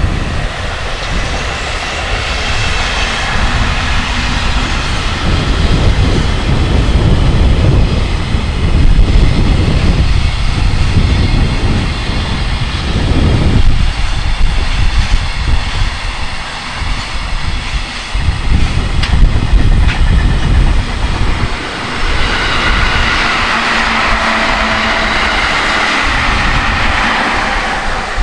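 A freight train hauled by an electric locomotive passing close by, its wagons rolling over the rails. Strong wind buffets the microphone in gusts.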